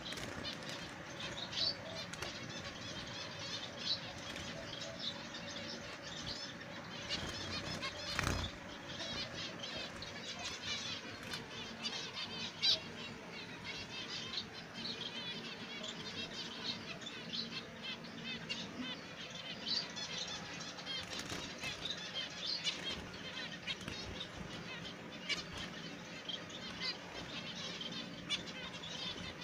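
Zebra finches calling in a cage: a steady stream of many short, high chirps, with wing flutters and a sharp knock about eight seconds in.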